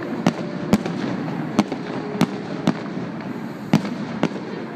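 Fireworks going off: about seven sharp bangs, irregularly spaced, over a steady background rumble.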